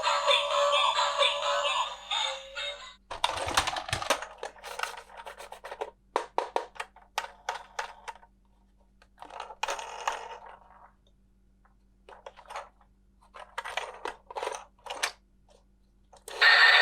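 A tinny electronic sung tune from a toy's small speaker stops about three seconds in. Scattered clicks and crackles of plastic toy pieces and packaging being handled follow, and a tune starts again abruptly near the end.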